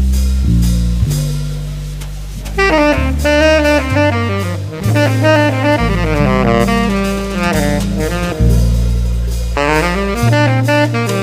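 Small jazz group playing: a bass line with drums, and a saxophone coming in about two and a half seconds in with quick runs of notes over it.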